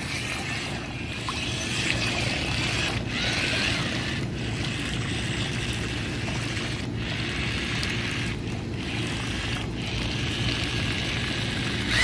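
A small 4WD amphibious RC car's paddle wheels churn and splash through pool water, with a faint high whine from its electric motors. The sound drops out briefly about five times.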